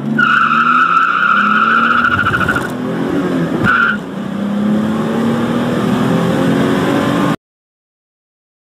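Turbocharged Datsun 280ZX's 2.8-litre straight-six under full-throttle acceleration from a standstill, heard inside the cabin: the rear tyres squeal in wheelspin for the first two and a half seconds and chirp again briefly at the upshift near four seconds, the engine note dropping at the shift and then rising steadily again. The sound cuts out abruptly about a second before the end.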